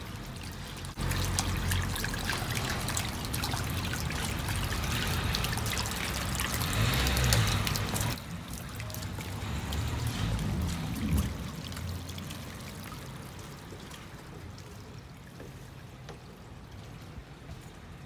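Water trickling and splashing down stone steps: street-cleaning water let out into the gutters. Loudest for the first eight seconds, it drops off sharply, swells briefly again, then fades steadily.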